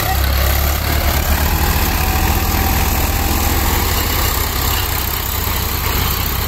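Diesel tractor engines running steadily with a low throb, the tractors pulling tine cultivators through dry soil.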